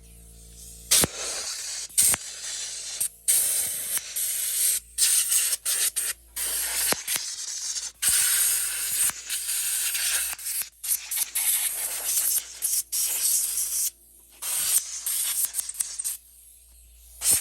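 Compressed air hissing from a blow nozzle in many short bursts, starting and stopping as it is worked over an RC car to blow the dirt off.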